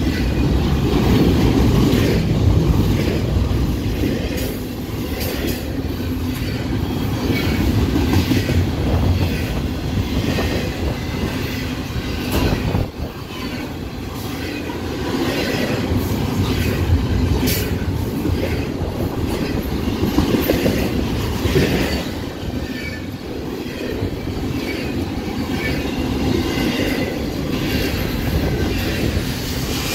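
Double-stack intermodal container train of well cars passing close by: a continuous rumble of steel wheels on the rails that swells and eases, with frequent clicks and knocks as the wheels cross rail joints.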